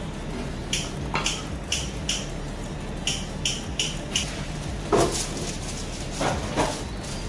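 A metal utensil clinking against a cooking pot: about nine light, sharp clinks over the first four seconds, then a few heavier knocks, over a steady low hum.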